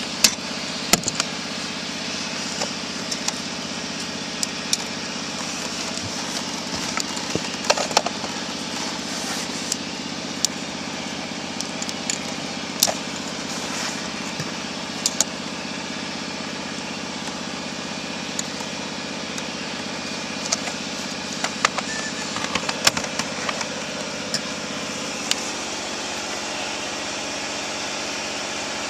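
A steady mechanical hum runs throughout, with scattered sharp clicks and knocks.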